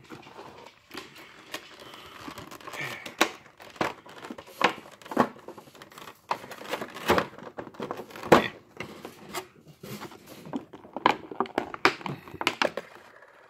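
Thin clear plastic blister tray from a trading-card collection box being handled and worked loose, crinkling and crackling with many irregular sharp clicks.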